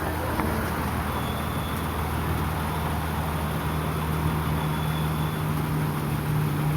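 2008 Toyota Sienna minivan running with a steady low hum, plus a faint high whine for a few seconds in the middle. It is a new noise the owner cannot place, suspecting the muffler, a fan or the alternator.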